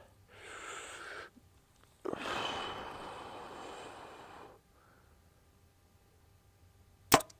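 An archer takes a long breath in and then a longer breath out while drawing and aiming. Near the end a PSE Lazer compound bow (60-pound draw) is shot with one sharp, loud crack, and a fainter click follows about half a second later.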